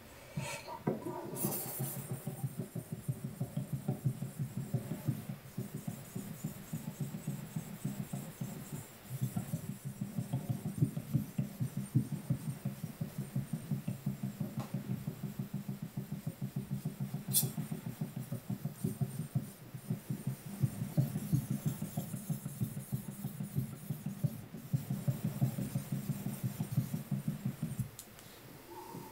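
A steel gyuto blade rubbed back and forth on a wet Mikawa Shiro Koma Nagura natural sharpening stone, in quick rhythmic strokes about three or four a second. The strokes ease briefly about eight seconds in and stop near the end, with one sharp click midway. This is the polishing stage that removes the scratches left by the previous 3K stone.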